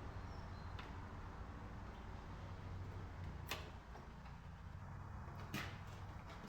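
Faint steady low hum with a few short, sharp clicks, the two clearest about three and a half and five and a half seconds in.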